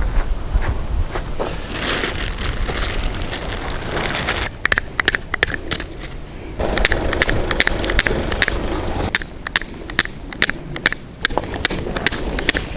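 Strong gusty wind rushing over the microphone, then, from about four seconds in, a rapid irregular run of sharp cracks and clacks as a heavy cotton camping tarp flaps and snaps in the gusts.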